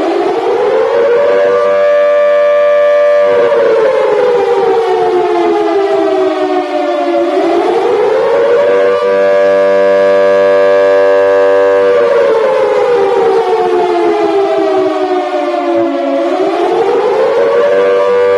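American civil defense air-raid siren sounding its wail: the pitch rises for about two seconds, holds, then slowly falls, over and over about every eight to nine seconds, with two pitches sounding together.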